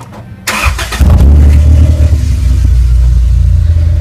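Car engine being cranked and catching about a second in, then idling with a loud, steady low rumble.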